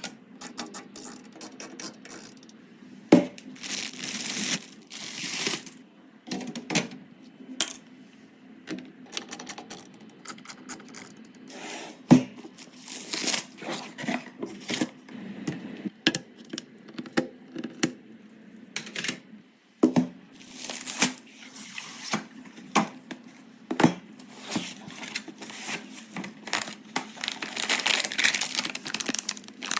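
Hands handling and fitting PC parts: scattered sharp clicks and taps of hard plastic and metal, with stretches of plastic crinkling and rustling that grow denser near the end.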